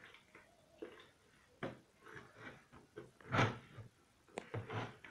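Soft puff-puff batter being mixed by hand in a plastic bucket: irregular slaps and knocks of hand and dough against the plastic, the loudest about three and a half seconds in.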